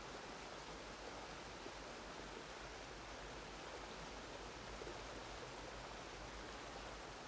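Faint, steady hiss with no breaks or changes, spread evenly from low to high pitches.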